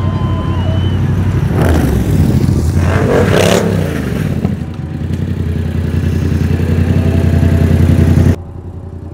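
Motorcycle engine running with a low, steady rumble and a noisy surge of revving about two to three seconds in. It then grows steadily louder and cuts off suddenly near the end.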